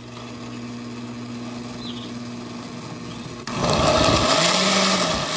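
Electric blender with a glass jar running, liquefying rehydrated guajillo and puya chiles with water, garlic and onion into a red mole sauce. A steady motor hum at first, then about three and a half seconds in it turns suddenly much louder as the blades churn the liquid.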